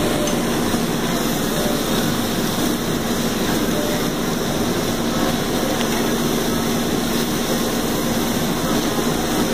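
Steady hiss and roar of a hot kitchen range: skirt steak strips and onion sizzling in a pan over a high gas flame, with a steady low hum underneath.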